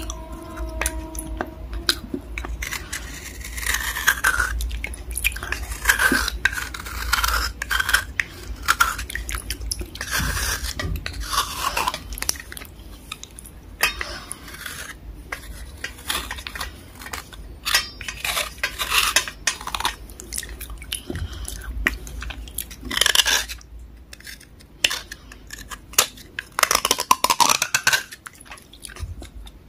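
A metal needle scraping and picking along the grooves of a water-soaked black block, giving irregular crunchy scratches, clicks and short squeaks, with water sloshing in the bowl.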